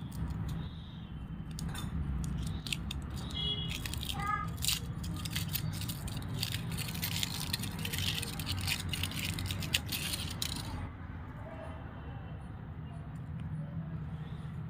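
Crinkling and crackling of a foil wrapper being peeled by hand off a small ball-shaped firecracker (aloo bomb), densest from about four to eleven seconds in, then dying down.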